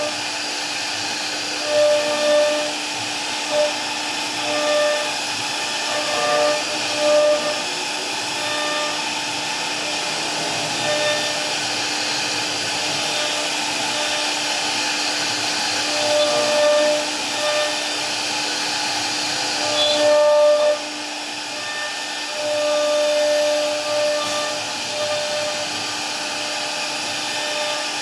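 CNC router running and cutting wood: a steady whirring rush with a low hum under it, and a fixed-pitch whine that comes and goes in short spells.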